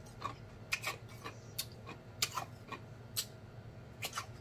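Close-miked eating sounds: wet lip smacks and chewing clicks while eating pig's feet, scattered irregularly, a few a second.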